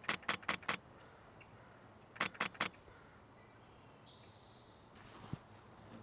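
Two rapid bursts of camera shutter clicks, four clicks each, about two seconds apart. After them comes a short buzzy call, then a thin, high repeated note near the end.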